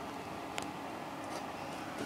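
Steady background noise with a single faint click about half a second in.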